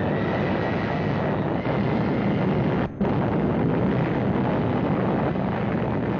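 Continuous rumble of an atomic bomb blast and its shock wave on an old newsreel soundtrack, with a brief break about three seconds in.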